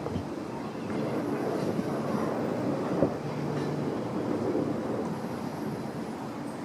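Steady low rumble of distant mechanical or traffic noise, with a faint engine-like hum coming and going and a single sharp tick about three seconds in.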